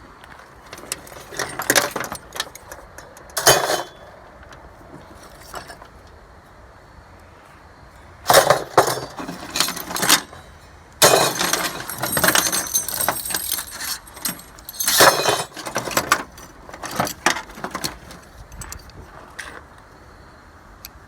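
Small pieces of aluminum scrap clinking and clattering as they are handled and dropped together, in several separate bursts of rattling impacts.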